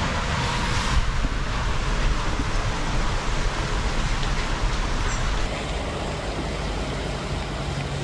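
Wind blowing through leafy trees: a steady rushing of wind and leaves, its tone shifting slightly about five and a half seconds in.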